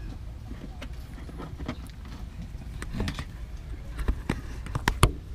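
Hands handling wires and RCA plugs at a powered subwoofer's control panel: rustling and small clicks, then a few sharp knocks near the end, the loudest about five seconds in, over a steady low rumble.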